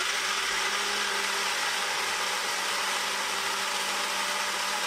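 Ninja Fit 700-watt personal blender running steadily, blending strawberries and frozen mango chunks into a smoothie: a constant whir over a steady low hum.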